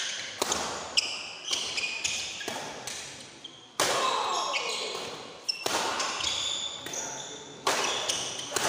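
Badminton rally in a large hall: rackets striking the shuttlecock about half a dozen times, each hit a sharp crack that rings out, with shoes squeaking on the court mat between hits.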